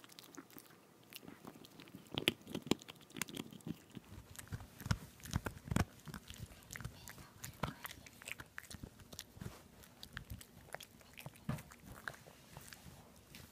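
Boston terrier chewing and gnawing on a boiled pork rib bone, with irregular crunching and clicking bites as it works at the soft end of the bone.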